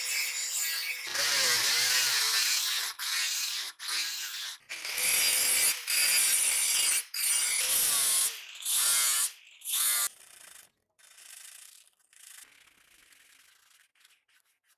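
Angle grinder with an abrasive disc grinding a steel knife blade down to bright metal. It runs in a string of loud passes broken by short, abrupt gaps, then drops to faint noise after about ten seconds.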